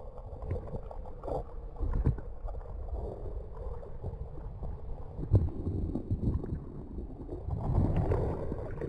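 Muffled water sound heard through a submerged action camera: low gurgling with the highs cut off, and a few dull knocks.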